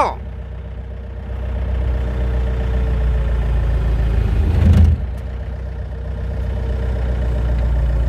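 Excavator's diesel engine running with its hydraulics working under load, heard from inside the cab as it shifts a heavy truck cargo box. The engine grows louder about two seconds in, with a brief louder burst about halfway through.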